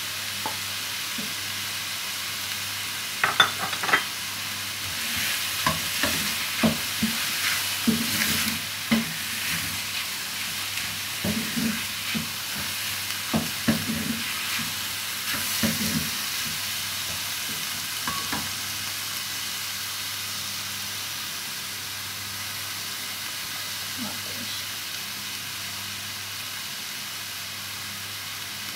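Chicken, garlic and mushrooms sizzling in a frying pan while being stirred, with sharp clicks and scrapes of the stirring utensil against the pan through the first half. After that the clicks thin out and the steady sizzle goes on.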